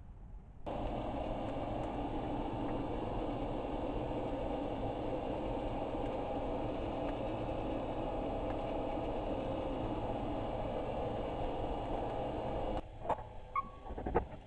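A steady machine noise starts abruptly about a second in and cuts off abruptly near the end, followed by a few sharp clicks and knocks.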